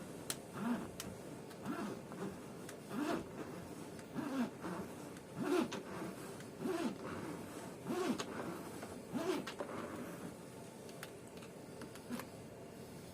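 Windscreen cut-out wire being pulled back and forth through the urethane bonding sealant: a rhythmic zipping scrape, about eight strokes a little over a second apart, that stops near the end.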